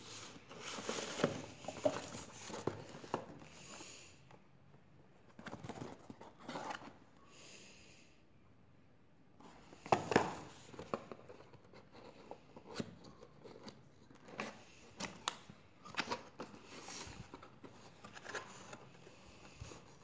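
Cardboard packaging being handled: a box slid out of its paper sleeve and its lid flaps opened, with scraping and rustling and scattered taps and clicks, the loudest scrape about halfway through.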